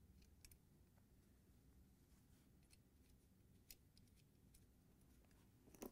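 Near silence: a few faint, brief clicks of small rubber and nylon mount parts being handled on the washer motor's base plate.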